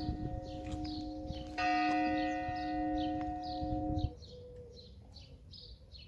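A church bell ringing, struck again about a second and a half in, then cutting off suddenly about four seconds in. A bird chirps over and over, about twice a second.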